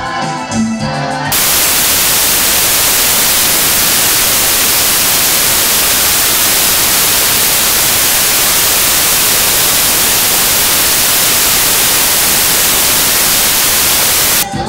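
A man singing a hymn over a microphone breaks off suddenly about a second in, replaced by loud, steady white-noise static from a corrupted recording. A brief snatch of the singing comes back near the end.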